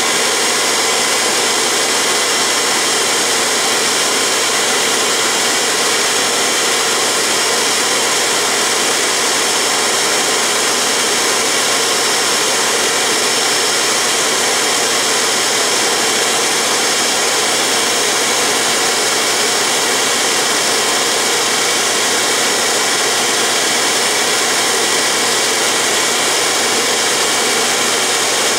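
Dumore toolpost grinder running steadily, its wheel grinding the taper of a hardened lathe center turning in the lathe: a steady high-speed whine over a grinding hiss. This is a light second pass to clean up the rough, bent center point.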